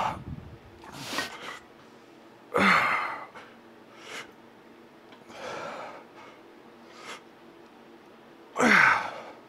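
A man breathing hard through a set of barbell curls, with a forceful breath roughly every second or two. Three louder exhalations, near the start, about three seconds in and near the end, carry a short voiced grunt that drops in pitch.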